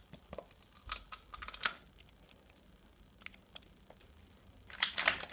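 Plastic wrapping of a toy ball being handled: a few brief crinkles and clicks, then a louder spell of crinkling near the end.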